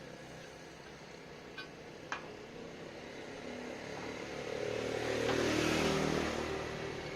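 Two light clicks, then a machine running that swells up over about two seconds and fades again.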